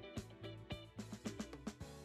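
Background music with plucked notes, including a quick run of notes in the second half.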